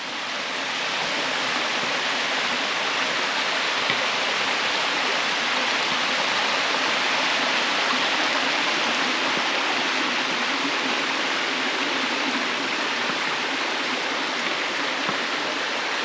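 Creek water rushing and splashing over sandstone ledges in small cascades. It is a steady rush that grows louder over the first second or two and then holds.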